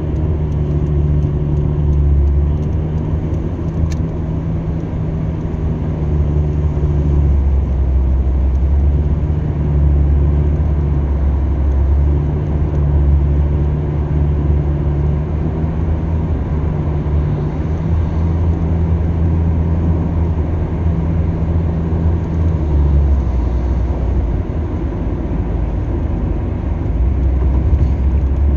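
Steady low rumble of a moving vehicle's engine and tyres on the road, heard from inside the cabin, with a low hum that fades and returns a few times.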